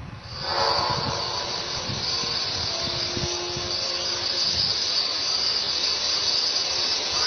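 A recording of a reported 'strange sound from the sky': a steady, dense high-pitched insect-like hiss sets in just after the start, with faint held low tones beneath it.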